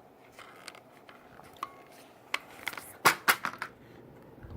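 Metallic clicks and rattles of a folding brace mechanism on an AR-style 5.56 pistol being worked by hand, with a quick run of louder clicks about three seconds in as it is forced into place.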